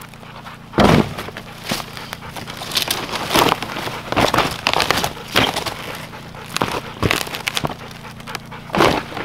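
Dry leaf litter, bark and twigs crunching and rustling under a person's boots and hands in a string of irregular sharp crackles, with a heavy thump about a second in.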